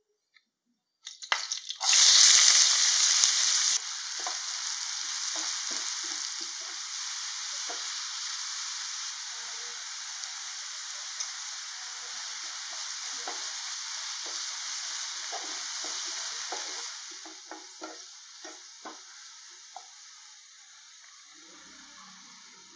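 Chopped onions sizzling in hot oil in a non-stick frying pan. A loud burst of sizzling starts about two seconds in and settles after a couple of seconds into a steady fry, with a spoon stirring and scraping through the pan. The sizzle dies down near the end.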